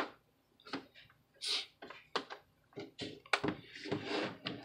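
An HP Chromebook 14's plastic case being handled and fitted back together: scattered light clicks and knocks, a brief scrape about a second and a half in, and busier knocking and rubbing near the end.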